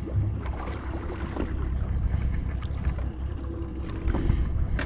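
Open-water ambience on a drifting fishing boat: wind on the microphone and water lapping at the hull, over a steady low rumble with a few light knocks.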